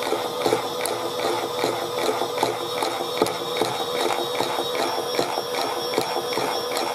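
Chad Valley toy washing machine's small motor and plastic gears running on spin, a steady high tone with a rhythmic ratcheting click about three times a second: a weird sound.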